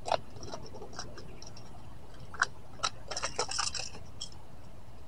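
Small clicks, taps and scratchy rustles of a fishing lure and tackle being handled by hand. A sharp click comes about two and a half seconds in, then a quick run of small clicks and rustles.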